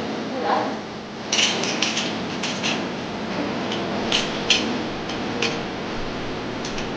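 Scattered light metallic clinks and clicks of gym equipment, irregular and in short clusters, over a steady background hiss.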